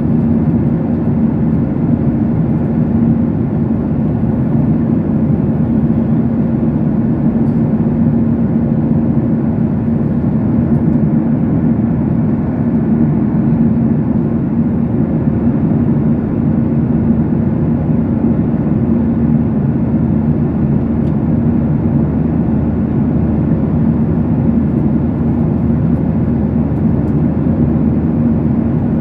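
Steady cabin noise of an airliner in flight: a constant drone of jet engines and rushing air, with a steady low hum and no changes.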